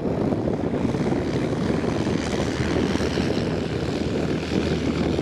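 Propeller aircraft engine running steadily at high power during the takeoff run, a dense, even drone with a steady low hum.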